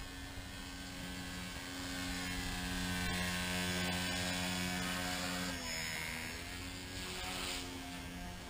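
Blade mCP X BL micro RC helicopter in flight: the steady whine of its motor and spinning rotor, dipping in pitch a little after halfway and coming back up near the end.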